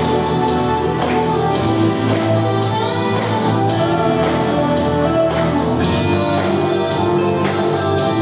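Instrumental break of a pop song: a full band arrangement with a steady beat and no vocal.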